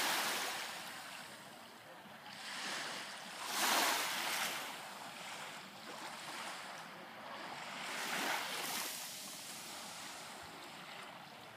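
Small waves from a calm sea washing onto a sandy beach. The surf swells and falls back about every four seconds, loudest about four seconds in.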